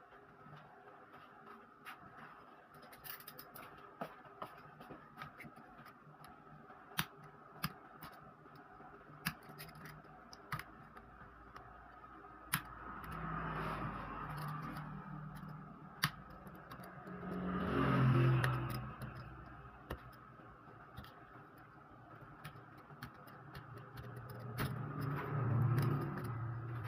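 Scattered sharp clicks and taps of small laptop parts and tools being handled. A low rumble swells up three times: about halfway through, a few seconds later, and near the end.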